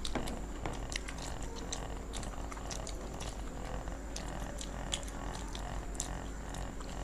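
Two people chewing and crunching fried vegetable pakoras, with scattered crisp crackles over steady mouth noise and a constant low hum.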